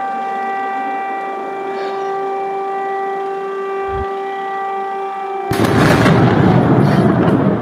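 Air raid siren holding one steady tone. About five and a half seconds in, a loud explosion cuts in and drowns it for about two seconds.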